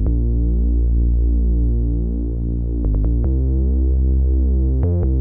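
Background music: sustained synthesizer chords over a heavy bass, changing chord a few times.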